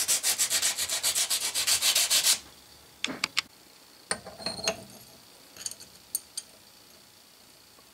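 A square of abrasive paper scrubbed quickly back and forth over the corroded metal flange of a dividing head, several strokes a second, cleaning off corrosion and dirt. The scrubbing stops about two and a half seconds in, followed by a few light metallic clicks and taps as the index plate is handled and fitted onto the spindle.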